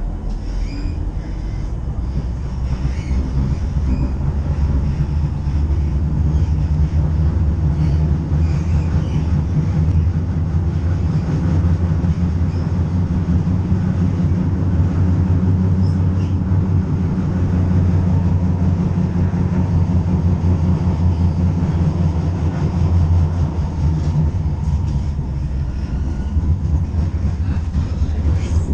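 Tram heard from inside the car as it runs along a city street: a steady low rumble of wheels on rails and running gear. It builds up over the first several seconds as the tram gathers speed, then holds.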